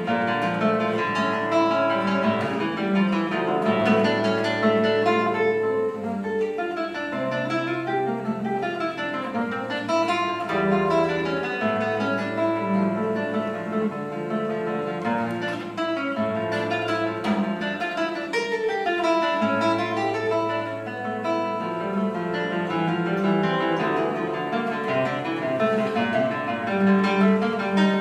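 Solo classical guitar played fingerstyle: a continuous flowing passage of plucked notes over held bass notes.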